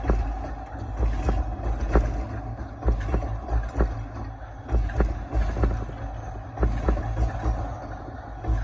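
Freight train cars rolling past with a steady rumble and irregular sharp clicks from the wheels over the rail, with wind buffeting the microphone in low gusts.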